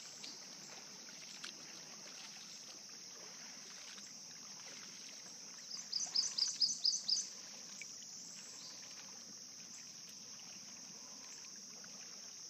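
A bird sings a fast run of about eight sharp, repeated high notes about six seconds in, over a steady high-pitched drone that lasts throughout.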